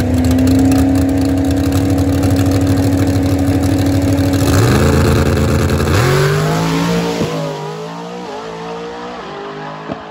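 Small-block V8 drag car held at a steady high rev on the starting line, then launching about six seconds in. The revs climb and drop sharply at each gear change, and the sound fades as the car pulls away down the track.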